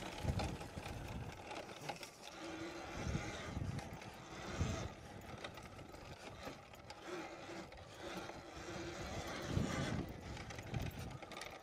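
Talaria electric dirt bike's motor whining faintly and its tyres hissing through loose sand as it rides along the trail, with several dull gusts of wind buffeting the phone microphone.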